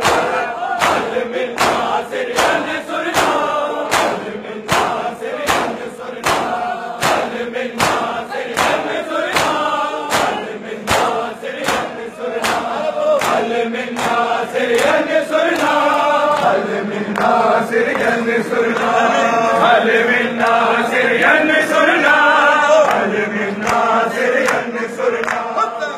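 A large crowd of men chanting a slow noha in unison while beating their chests in matam, the hand strikes landing together as sharp claps about one and a half to two times a second. In the second half the strikes grow fainter and the group chanting carries on.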